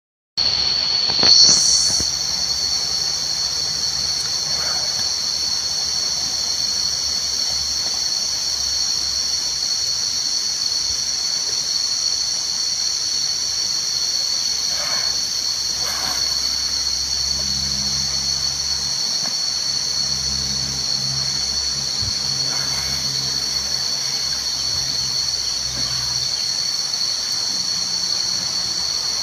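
A steady, high-pitched insect chorus, droning without a break.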